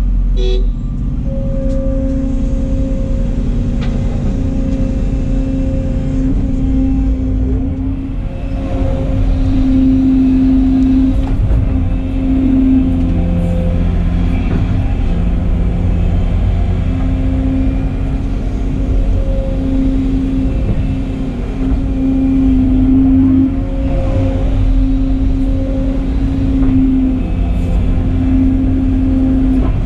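Volvo excavator's diesel engine and hydraulics heard from inside the cab as it swings, dumps and digs: a steady low drone with a humming tone that swells and fades every second or few as the hydraulics take load.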